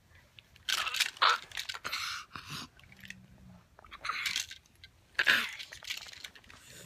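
A toddler's breathy, unvoiced laughter close to the phone's microphone, in several short bursts.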